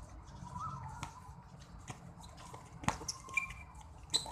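Basketball players' shoes tapping and scuffing on a hard court, with scattered sharp taps and a louder thump about three seconds in.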